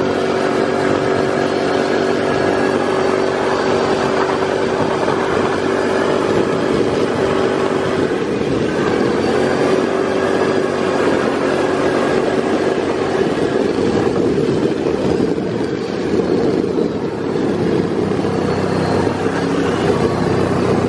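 Side-by-side UTV's engine running steadily as it drives along a road, its note stepping up slightly about eight seconds in.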